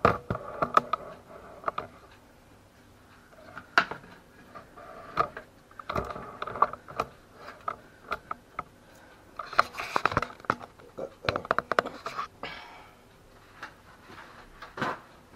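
Kitchen handling sounds: scattered clicks and knocks as a baking tray with a silicone mat and courgette halves is handled and set on the hob, with a rustle about ten seconds in.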